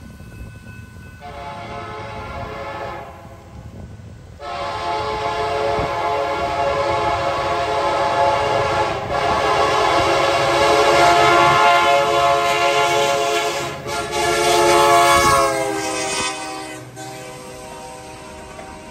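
Diesel freight locomotive's air horn sounding a chord: a short blast, then one held for about nine seconds, then a last blast of a few seconds whose pitch drops as the locomotive passes close by. The train's rumble runs underneath, with the clatter of hopper cars rolling past near the end.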